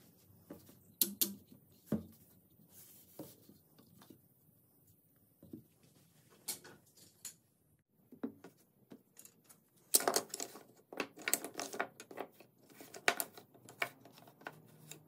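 Wooden parts handled and set down on a tabletop: scattered light clicks and knocks of wood, with a dense clatter about ten seconds in.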